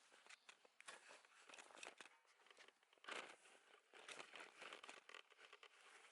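Faint, irregular rustling and crunching with scattered clicks, a little louder about three seconds in.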